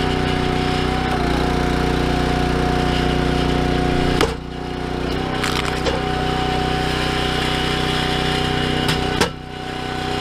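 Small gas engine of a 22-ton hydraulic log splitter running steadily, with a steady whine over the engine note. There are two sharp knocks about 4 and 9 seconds in, each followed by a brief dip in loudness.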